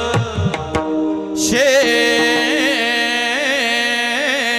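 Devotional kirtan singing: a man's voice holds long, wavering sung notes over a steady instrumental drone. A few drum strokes sound in the first second, and a louder held note begins about a second and a half in.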